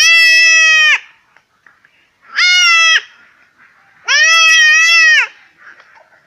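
Young male goat bleating loudly in distress three times, each cry about a second long, while being held down and castrated.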